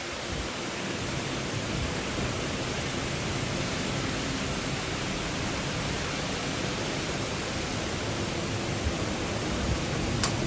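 Heavy thunderstorm downpour: a dense, steady hiss of rain.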